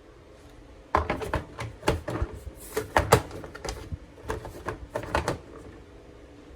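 Plastic egg storage box being handled: a quick run of sharp clicks and knocks lasting about four and a half seconds, like a lid being snapped and the box set down.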